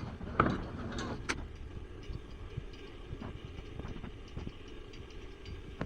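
Steady low engine rumble of street or site traffic, with a few sharp knocks in the first second or so, the loudest about half a second in.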